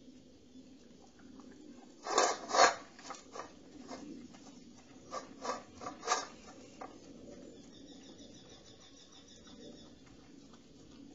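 A dog eating from a stainless steel bowl: crunching and clinks of food and teeth against the metal. There is a loud cluster about two seconds in, another burst of clinks around five to six seconds, and then quieter eating.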